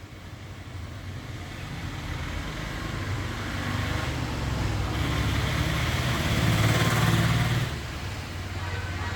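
A motor vehicle passing on a nearby road: an engine hum with tyre noise that grows steadily louder, is loudest about seven seconds in, then drops off suddenly.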